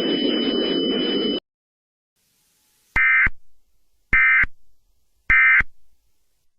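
Emergency Alert System end-of-message data signal: three identical short buzzy digital bursts about a second apart, marking the end of the alert. Before them, a steady background hum with a thin high whine cuts off about a second and a half in.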